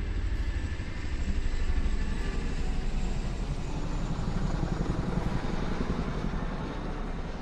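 A motor vehicle engine running close by with a low, pulsing rumble, louder through the middle and fading near the end.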